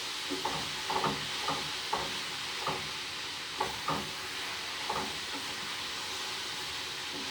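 Vegetables sizzling in hot oil in a pan while being stir-fried, with a steady hiss and short strokes of a utensil scraping the pan every second or so.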